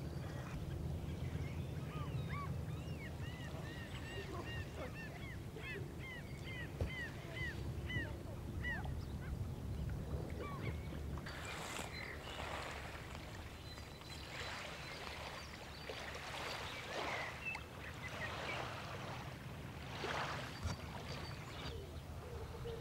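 A bird calling in a quick run of short, arching chirps over a steady low rumble. In the second half, irregular rushes of noise come and go.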